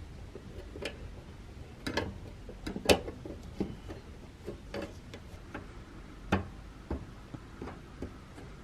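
Irregular small metal clicks and taps, as of the lantern's tin parts being handled and fitted, with a sharper knock about three seconds in and another about six and a half seconds in.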